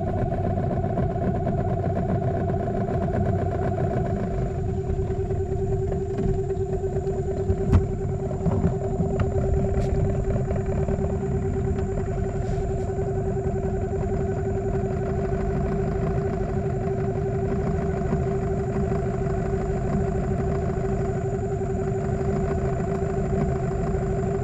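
Small boat's outboard motor running steadily at cruising speed, with an even drone and a low rumble. A single brief knock comes about eight seconds in.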